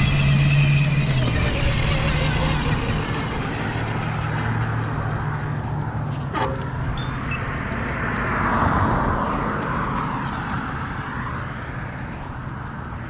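Riding noise on a fat-tire electric mountain bike with a Bafang BBS-HD mid-drive: a continuous rush of wind and tyre noise. A steady low drone fades out in the first couple of seconds, and there is one sharp click about six seconds in. The noise swells briefly a little past the middle and eases off toward the end.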